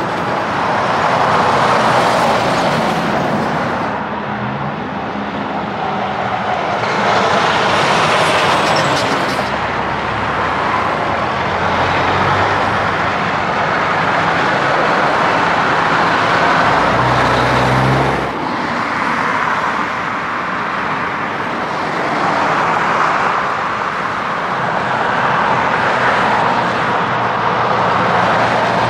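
Semi-trucks and cars passing one after another on a town road: diesel engine drone and tyre noise swell and fade with each pass-by.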